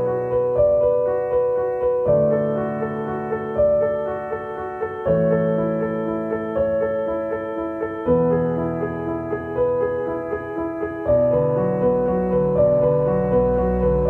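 Slow background piano music: a repeating melody over chords that change about every three seconds.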